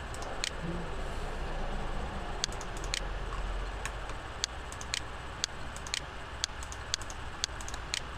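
Sharp computer clicks, from a mouse and keyboard working CAD software, over steady background noise. They come irregularly at first, then about two a second in the second half.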